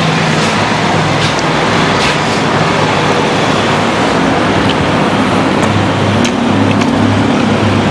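Steady road traffic noise, with a vehicle engine's low hum coming in over the last couple of seconds.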